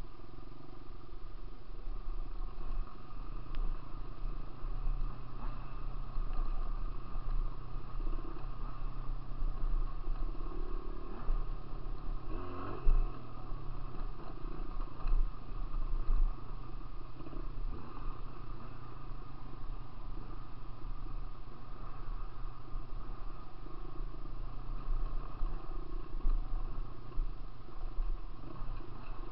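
Dirt bike engine running under way on a gravel trail, its pitch rising and falling with the throttle, with wind buffeting the microphone. A sharp knock about halfway through.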